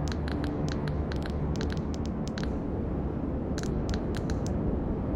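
Computer-generated sonification of a simulated protein-folding trajectory: a dense low drone with groups of short, bright clicks, several in quick succession, standing for hydrogen bonds forming and breaking.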